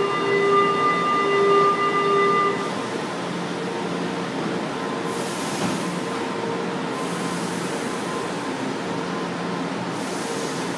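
São Paulo Metro Line 1 train at the platform: a loud steady warning tone with overtones sounds for about two and a half seconds, typical of the door-closing signal. It then gives way to the steady running hum of the train moving off, with brief rushes of hiss.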